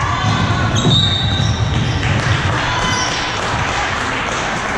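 Indoor basketball game: a ball bouncing on the court and players' footfalls, with spectators' chatter in an echoing gym.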